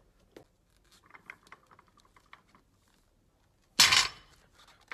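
Light metallic clinks and rattles of a loaded barbell and its plates, then, about four seconds in, a loud sudden rush of noise lasting under half a second.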